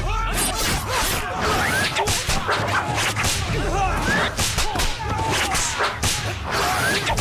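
Sound effects for a sword fight: whip-like whooshes of swinging blades, many in quick succession.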